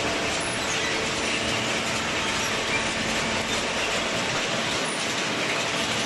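Inclined steel chain-plate conveyor running, carrying scrap cardboard up into a horizontal baler: a steady, dense clatter and rattle of chain and plates.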